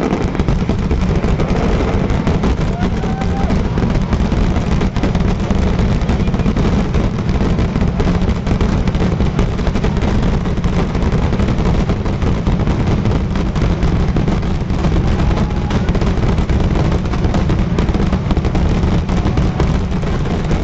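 Fireworks display firing a dense, unbroken barrage of bangs and crackles, so rapid that they run together into one continuous loud din.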